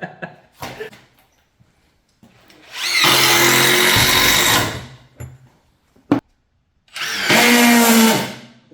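Cordless impact driver driving screws in two runs of about two seconds each, each spinning up with a rising whine, with a single sharp click between them.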